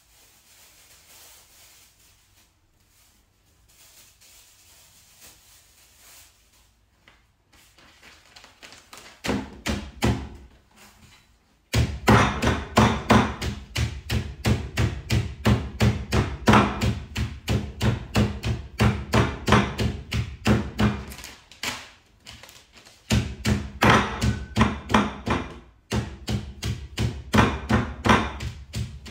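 Cooked pork in a bag being pounded to loosen it into floss: a quiet start, then from about nine seconds in a steady run of sharp thuds, roughly three a second, broken by two short pauses.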